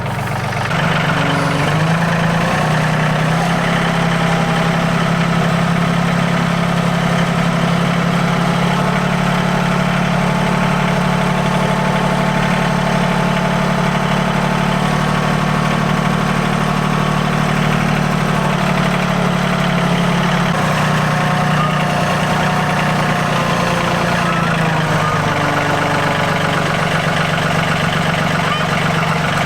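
Yanmar YT235 tractor's diesel engine running steadily at raised throttle, its pitch stepping up about a second in and dropping back twice in the last third, working with a heavy pallet load on the front-loader forks.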